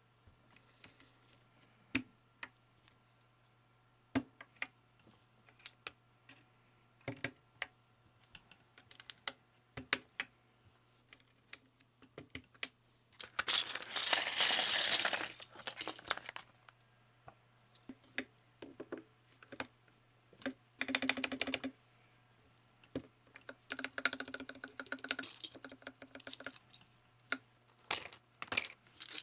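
Typing on a small custom mechanical keyboard, a polycarbonate Funderburker TMOv2 with POM Jelly keycaps: scattered single keystrokes at first, then several fast runs of typing.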